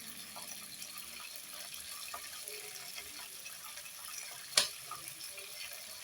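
Faint steady hiss of a pot of chicken cooking on the stove, with one sharp clack about four and a half seconds in.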